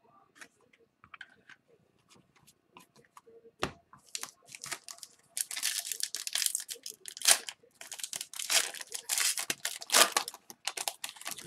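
Foil wrapper of an Upper Deck hockey card retail pack being torn open and crinkled, dense and crackly from about four seconds in, after a few light clicks of cards being handled.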